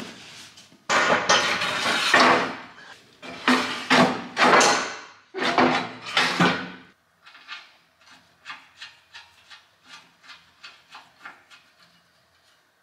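The engine crane's steel arm section is slid and shoved into the steel channel of its base frame, scraping metal on metal in four or five loud pushes. After that come a run of light, evenly spaced clicks, about three a second.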